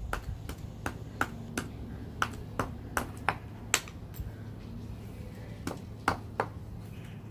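A screwdriver jabbing and chipping at a plaster dinosaur-excavation block: a series of sharp, irregular taps, about two a second, with a short pause in the middle.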